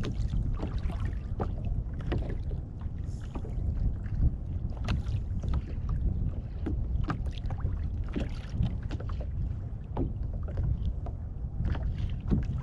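Small waves lapping and slapping irregularly against a kayak's hull, over a steady low rumble of wind on the microphone.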